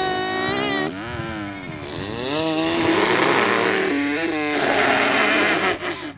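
A boy imitating a motor vehicle engine with his mouth: a held buzzing tone that then swoops up and down in pitch like an engine revving, turning rougher and hissier in the second half.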